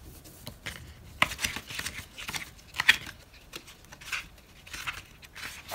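Sheets of scrapbook paper rustling and sliding as they are lifted and turned over by hand, in several short, irregular swishes.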